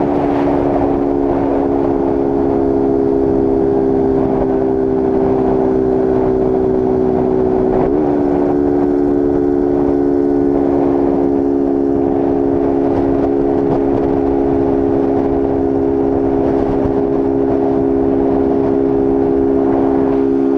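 Honda Start 160's single-cylinder engine running steadily at high revs near top speed, about 125 km/h, with its air filter removed, heard from the rider's seat with wind rushing past. Its pitch dips briefly and comes straight back about eight seconds in.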